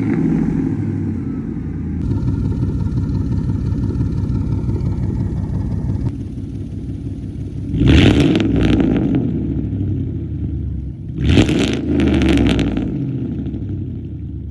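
Ford 5.4 Triton V8 exhaust through pre-cat true dual straight pipes: a choppy idle, blipped up in a quick rev about eight seconds in and in two more short revs a few seconds later, dropping back to idle each time.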